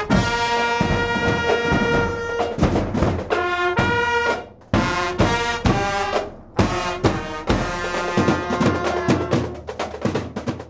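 Brass instruments playing over drums: long held notes at first, then shorter, quicker notes.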